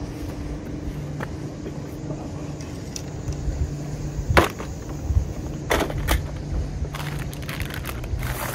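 A steady low engine hum, with scattered sharp clicks and knocks, the loudest about four and a half seconds in.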